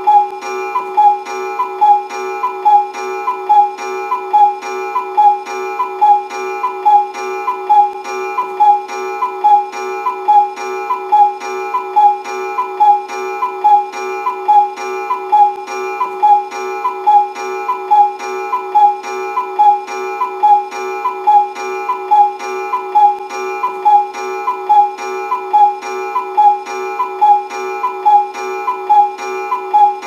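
Cuckoo clock calling "cuckoo" over and over at an even, quick pace, more than one call a second, with no break.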